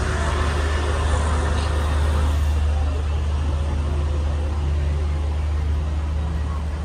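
A steady, deep engine hum with an even wash of noise above it.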